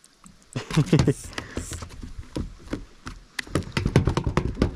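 Irregular knocks and taps, a scatter of short hard hits on and around a small fishing boat.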